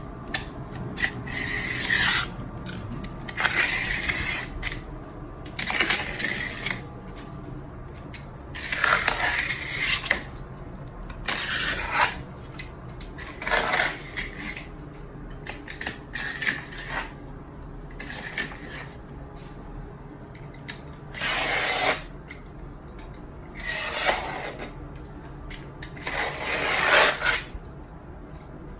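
Hand tools working at an old window frame: irregular scrapes, each about a second long, broken by sharp metallic clicks and clinks.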